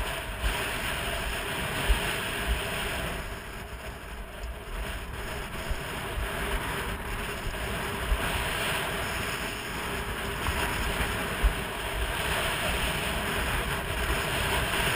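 Steady rush of wind over the microphone mixed with skis hissing over groomed snow on a downhill run, with a few soft knocks as the skis ride over bumps.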